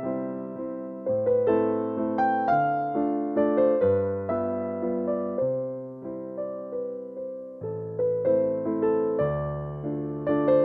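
Background music: a gentle keyboard tune of struck notes that ring and fade, a melody over chords and low bass notes.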